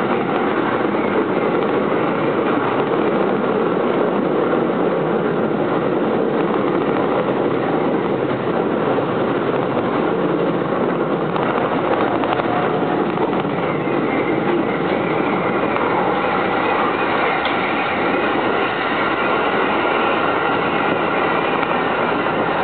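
Electric commuter train running at speed, heard from inside the passenger car: a steady rumble and rush of wheels on rail and running gear, with faint high tones joining in about two-thirds of the way through.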